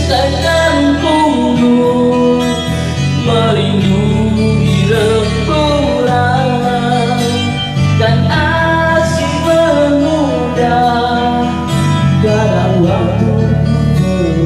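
A man singing into a microphone over guitar-based music, with a steady bass line beneath the voice.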